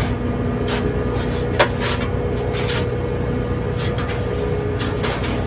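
Fishing boat's engine running with a steady drone, overlaid by irregular scrapes and crunches of shovels digging into crushed ice, the loudest about a second and a half in.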